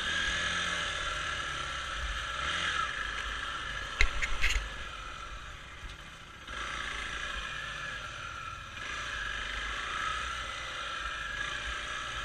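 Single-cylinder four-stroke trail motorcycle running while being ridden off-road, its engine note rising and falling with the throttle. A short cluster of knocks and rattles comes about four seconds in, and the engine eases off briefly around six seconds before picking up again.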